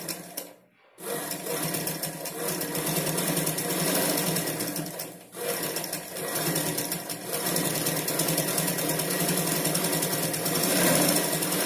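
Black domestic straight-stitch sewing machine running at speed, stitching a straight seam through the fabric, with a brief stop about five seconds in. A few short clicks come just before it starts, about a second in.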